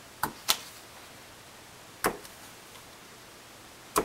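Paper piercer punching holes through cardstock into a piercing mat, one sharp click per hole: two in quick succession just after the start, one about two seconds in, and one near the end.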